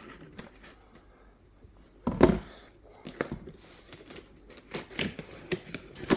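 Packing tape being peeled and torn off a cardboard box, with crinkling rustles and clicks. A loud bump of the box about two seconds in, and a run of sharper rustles from about three seconds on.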